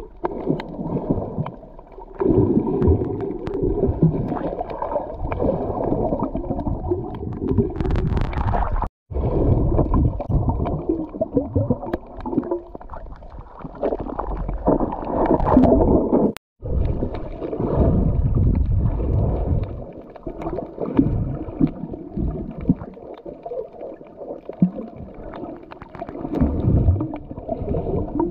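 Muffled underwater rumbling and gurgling of water moving against a camera held under the sea, with low, irregular surges; it cuts out for an instant twice.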